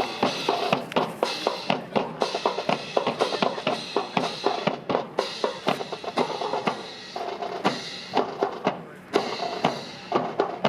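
Drums playing a fast, busy rhythm of sharp snare and bass-drum strikes, accompanying a drill performance.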